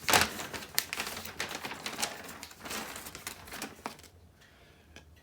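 Small parts of a tree-train kit being handled, with a quick run of light clicks and rustling that dies down after about four seconds.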